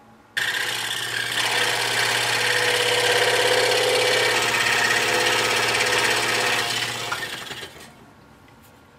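Scroll saw cutting quarter-inch oak, the blade running with a steady motor hum and a rasping cut. It starts suddenly about half a second in and fades out over the last two seconds.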